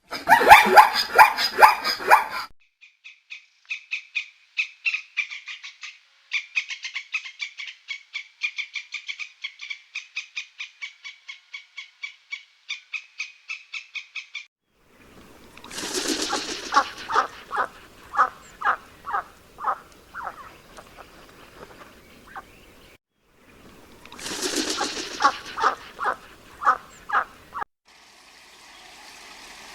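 A sequence of different animal calls. First comes a long run of fast, high, evenly repeated chirps, about three a second. Then two bursts of lower, rhythmic calls follow, each starting with a noisy rush.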